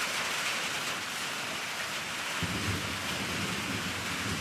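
Steady rain falling outdoors. About halfway through, a low rumble of thunder joins in and carries on.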